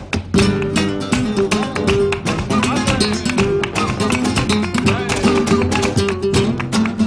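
Flamenco guitar playing a bulería with the band: fast runs and strummed chords with sharp percussive accents, over a cajón rhythm. There is a brief break just after the start.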